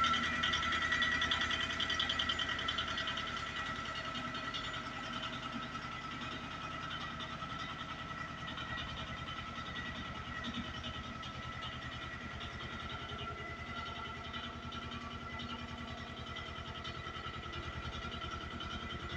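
An engine running steadily, a little louder for the first few seconds before settling.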